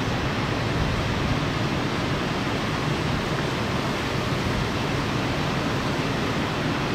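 Parked tiller ladder fire truck's diesel engine idling, heard as a steady, even noise with a low hum underneath.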